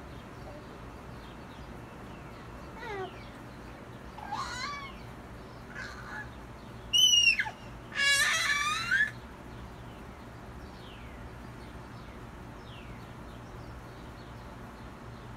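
Several short falling calls from an animal: faint ones at first, then two loud ones about seven and eight seconds in, the second longer and rattling.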